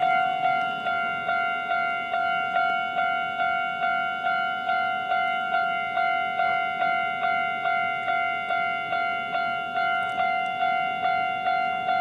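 Railway level crossing alarm ringing, a fast, steady "kan-kan" of evenly repeating bell-like tones, about two and a half strikes a second, each fading before the next.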